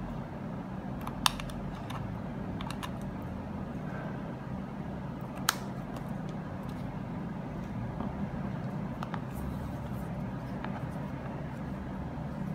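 Handling sounds of a plastic USB cable and a metal power bank: two sharp clicks, one about a second in and one about five seconds in, with fainter ticks as the USB-A plug is pushed into the power bank's port and the unit is turned over, over a steady low hum.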